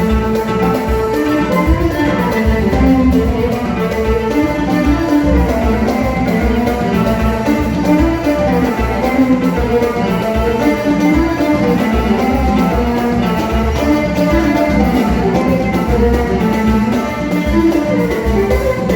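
Instrumental Hassaniya Saharan music played live, with sustained melodic tones over a steady drum beat.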